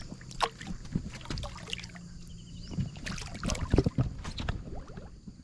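Water splashing and sloshing against the side of a small boat as a giant snakehead is released by hand. A cluster of louder splashes comes a little after three seconds in, as the fish swims off.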